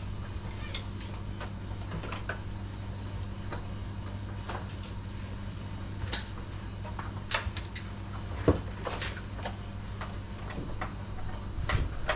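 Scattered clicks and small plastic rattles of connectors and cables being handled and unplugged in an automation system cabinet, with a few sharper clicks, over a steady low machinery hum.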